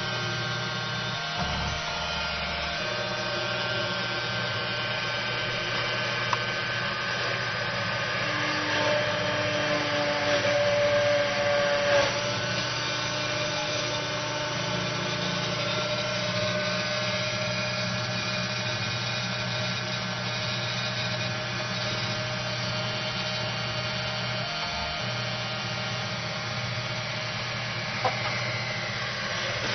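Small CNC PCB drilling machine running, with a steady motor hum and whine made of several fixed tones. It gets louder for a couple of seconds around ten to twelve seconds in, and there is a sharp click twice.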